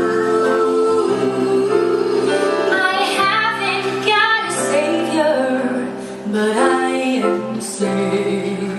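Several women's voices singing together in harmony, with long held notes between moving phrases.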